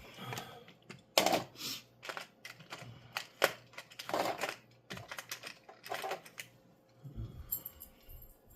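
Small metal parts, pinion gears, clicking and clinking as they are rummaged through by hand, in irregular bursts of clicks and short rattles.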